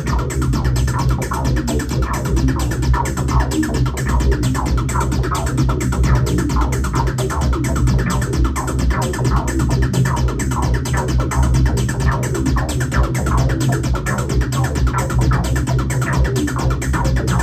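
Electronic music played live on hardware synthesizers and a drum machine (Behringer Poly D, Behringer Edge, Roland T-8, Arturia MiniBrute): a steady, fast beat over a sustained heavy synth bass.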